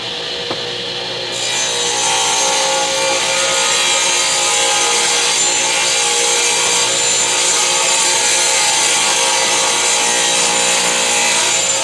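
Woodworking power tool running steadily with a motor whine, its cutter taking a light pass along the edge of a board; the cut bites and the sound gets louder about a second and a half in.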